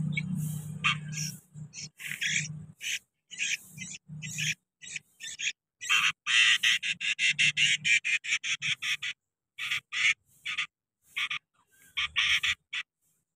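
Sooty-headed bulbuls chirping: a string of short, high chirps that come fastest in a rapid run about six to nine seconds in. A low hum sits under the first few seconds.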